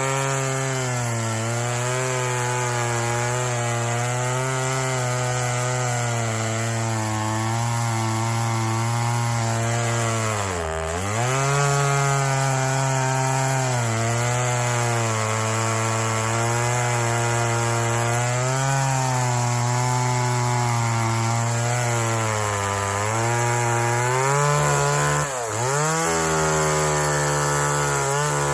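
Homelite two-stroke chainsaw running at high revs, cutting through pine wood. Its pitch dips sharply and recovers once about a third of the way in and again near the end.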